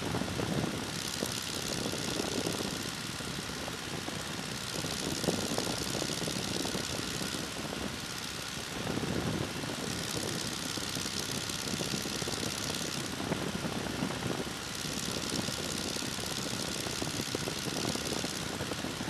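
de Havilland Tiger Moth biplane in cruise flight: its four-cylinder Gipsy Major engine and propeller drone steadily, and a higher hiss of rushing air swells and fades every few seconds.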